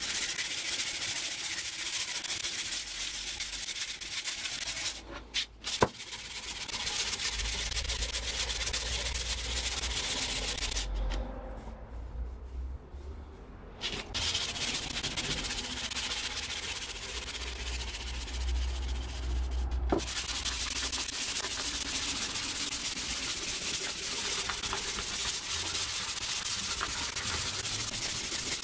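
Sandpaper rubbing quickly back and forth along a round wooden tool handle, hand-sanding it. The rasping stops briefly twice, once for a few seconds about halfway through, and there is a sharp tap about six seconds in.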